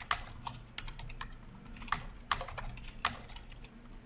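Typing on a computer keyboard: quick, irregular key clicks, a few struck harder than the rest.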